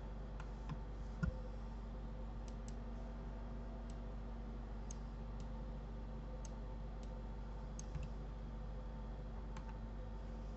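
Scattered light clicks of a computer mouse and keyboard, about a dozen spread irregularly, over a steady low electrical hum.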